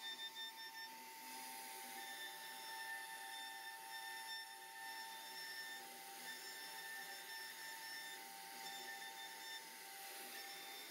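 CNC router spindle running while carving a relief into a wood panel: a steady whine, with fainter higher tones that cut in and out every second or two.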